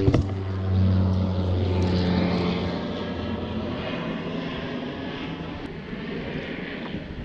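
A steady low engine drone with a humming pitch that fades away over the first three or four seconds, leaving a soft wash of wind and water noise.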